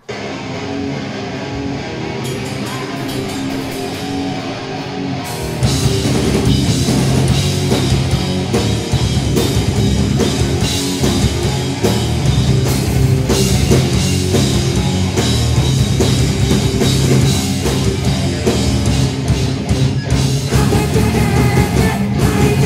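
Live grindcore band playing heavy distorted metal. It opens with a quieter, held guitar part, then about five seconds in the drums and full band come in, much louder and dense.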